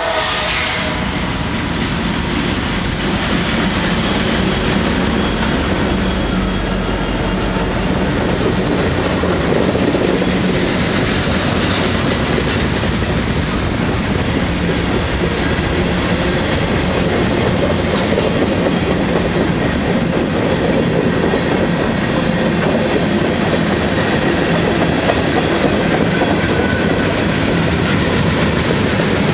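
CSX diesel-hauled freight train passing close by: the locomotives rumble past, then a long string of tank cars, boxcars and covered hoppers rolls by with steady, loud wheel-on-rail noise and rhythmic clickety-clack.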